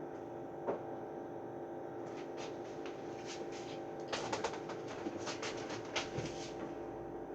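A steady hum from a running appliance, with a series of light clicks and knocks from about two seconds in as things are handled.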